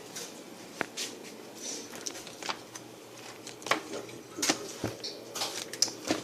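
Scattered clicks, taps and crinkles of MRE ration packets being handled and sorted, with a few sharper clicks spread through.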